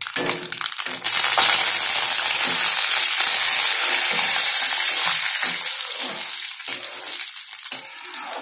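Fresh curry leaves dropped into hot sesame oil with spluttering mustard seeds, flaring into a loud sizzle about a second in that slowly dies down over the next few seconds. A metal slotted spoon stirs and scrapes in the kadai throughout: a tempering (tadka).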